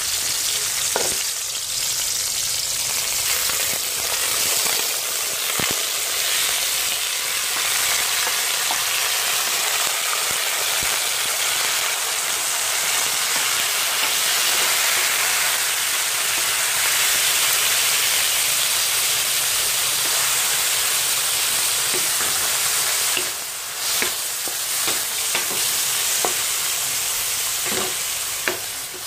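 Octopus pieces, sliced onion, tomato and garlic sizzling in hot oil in a steel wok as they are stirred with a wooden spatula. The sizzle is loud and steady, then eases somewhat after about 23 seconds, when a few sharp taps of the spatula against the wok come through.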